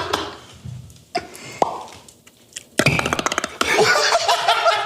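Beatboxing: scattered mouth clicks and a short falling whistle-like glide, then from about three seconds in a loud, rapid run of clicks and snare-like hits, followed by pitched vocal sounds.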